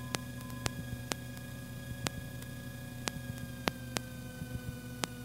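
Steady hum of the Cherokee Arrow's idling engine heard through the cockpit intercom feed, dipping slightly in pitch about three and a half seconds in, with sharp irregular clicks on the line.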